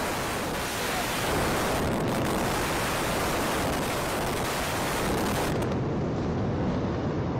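Steady, loud rushing noise from the collapse of the Supertech twin towers in a controlled demolition and the spreading debris. About five and a half seconds in, the high hiss drops away and a duller rumble remains.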